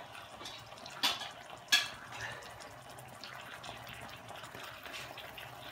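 Kitchen tap running as canned tuna is rinsed in a small strainer to wash off its oil, with two sharp knocks about one and nearly two seconds in.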